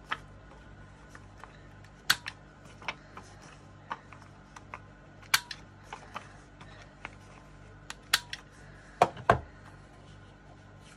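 Paper corner rounder punch clicking as it rounds the corners of a card panel with a 7 mm radius: sharp clicks every few seconds, with lighter handling clicks between and a heavier knock near the end.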